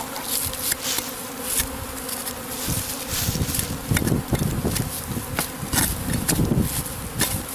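A swarm of honeybees buzzing steadily at close range, with scattered sharp clicks throughout and some low rumbling in the middle.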